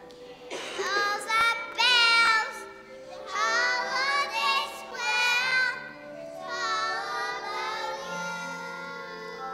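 Young children singing a song together in short phrases, with piano accompaniment.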